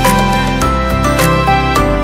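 Background music: a gentle melody of held notes over a bass line and a steady beat.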